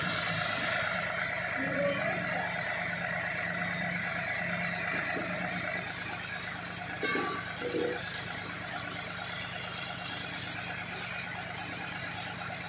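Mini excavator's diesel engine idling steadily with its engine cover open.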